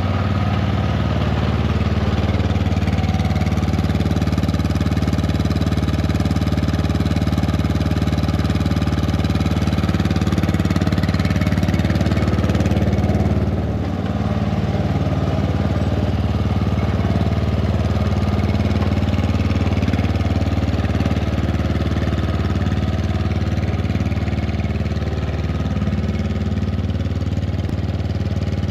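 Riding lawn mower engine running steadily at an even speed, with a brief drop in loudness about halfway through.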